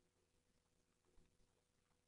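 Near silence: faint background hiss, with one brief low thump about a second in.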